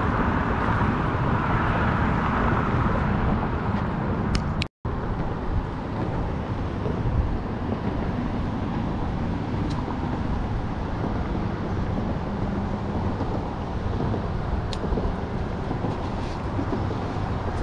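Steady outdoor background noise, a dense rumbling haze heaviest in the low end, that cuts out to silence for a split second about five seconds in.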